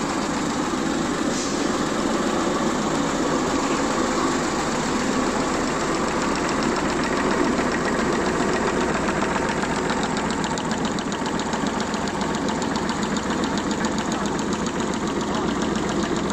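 Hazelnut kernel chopping machine and its grading sieve running: a steady mechanical drone with a fast, even rattle that becomes clearer partway through.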